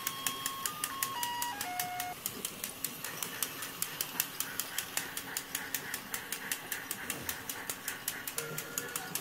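Toy Christmas train set with a turning skating-rink centerpiece running, giving a rapid, steady clicking of about six or seven clicks a second. A simple tinkly electronic tune ends about two seconds in, and another tone starts near the end.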